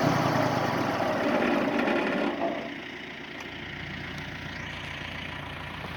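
Wood-Mizer LT40 Wide sawmill running; about two and a half seconds in, the sound drops to a quieter, steady engine note.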